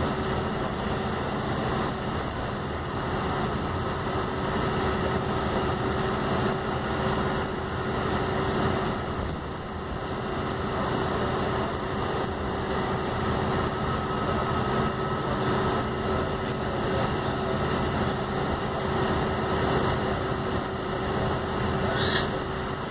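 Volvo B8RLE bus's diesel engine and driveline running, heard from inside the passenger saloon as a steady drone with a constant hum and higher whine over an even rumble. A brief high-pitched sound comes near the end.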